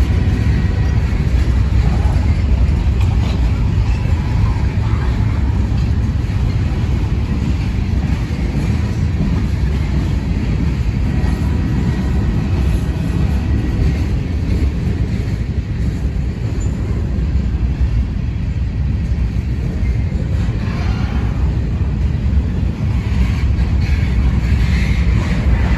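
Freight cars of a mixed freight train, covered hoppers and tank cars, rolling past close by: a loud, steady rumble of steel wheels on the rails.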